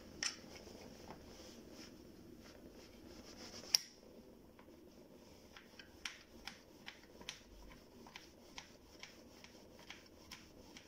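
Faint, irregular small clicks and taps of objects being handled, with one sharper click about four seconds in.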